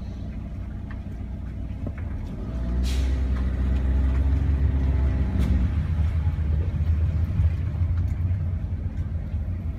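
Car driving through slow city traffic: a steady low road and engine rumble that grows louder about three seconds in, with a pitched hum over it for a few seconds.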